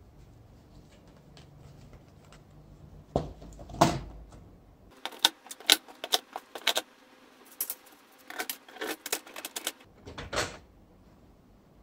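Hard plastic LEGO Technic parts being handled and set into a Technic frame: two knocks a little after three seconds in, then a run of quick clicks and clatter, and a heavier knock near the end.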